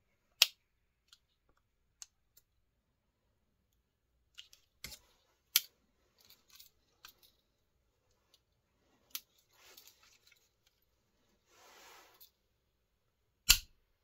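Victorinox Ranger 78 M Grip Swiss Army knife's tools being worked, giving five sharp snapping clicks a few seconds apart as tools are opened or closed. Lighter clicks and two brief bouts of scraping handling noise come between them.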